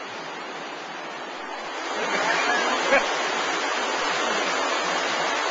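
Steady rush of flowing water in an active sewer channel, growing louder about two seconds in.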